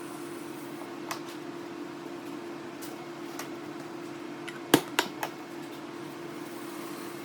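Steady mechanical hum with a few sharp knocks: a faint click about a second in, then three quick knocks a little after halfway, the first the loudest.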